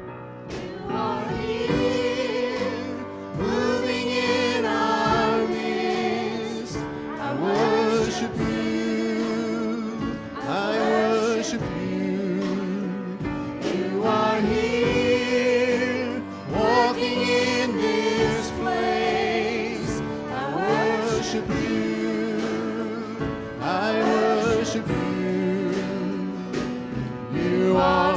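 Gospel worship music: a group of singers with instrumental accompaniment, sung throughout.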